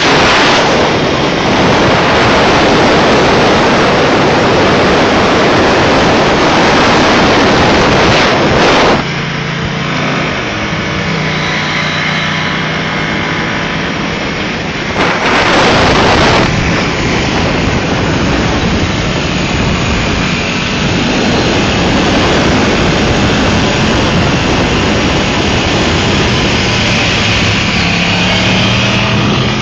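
Motorcycle riding at speed, with heavy wind noise buffeting the microphone over the engine. The wind drops about nine seconds in, letting the engine's note through, surges again briefly in the middle, and the engine note rises near the end.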